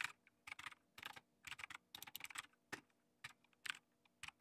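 Quiet typing on a computer keyboard: an uneven run of short key clicks, with a brief pause about three seconds in.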